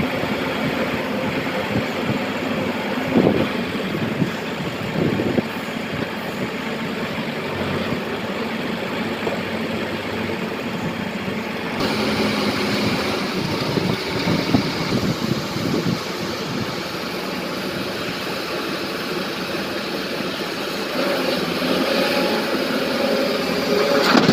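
Heavy diesel engine of a BharatBenz tipper truck running steadily as it manoeuvres, with a few knocks. Right at the end, a crash of broken rock begins falling into the steel tipper body.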